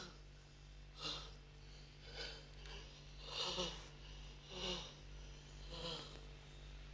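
A man's heavy, ragged breathing: five gasping breaths a little over a second apart, each with a hoarse catch of voice, the breathing of someone badly shaken.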